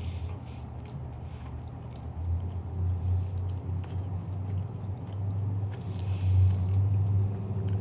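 Chewing and biting into a soft, Oreo-flavoured cream-filled pastry, with small moist mouth sounds over a steady low hum.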